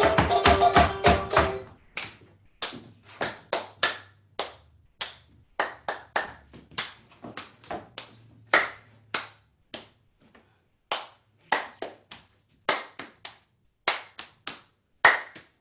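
Strummed acoustic guitar music stops about a second and a half in. A run of sharp percussive taps follows in an uneven rhythm, a few per second.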